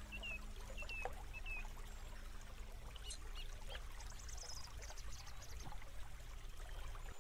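Steady trickle of running water, with a few short bird chirps in the first two seconds and a brief rapid trill about four seconds in.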